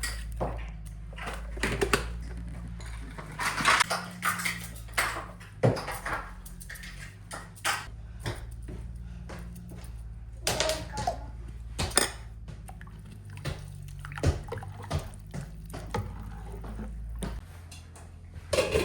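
Kitchen work: dishes, pots and cutlery clinking and knocking at irregular moments, with water sloshing now and then, over a low steady hum.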